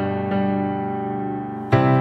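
Background music: a piano-like keyboard playing held chords, with a louder new chord struck near the end.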